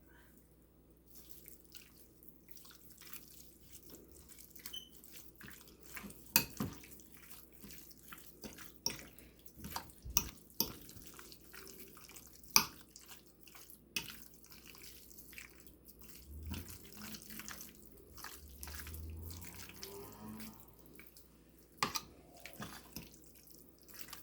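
Raw chicken strips coated in olive oil and dry spices being mixed together: irregular soft wet squelches and clicks.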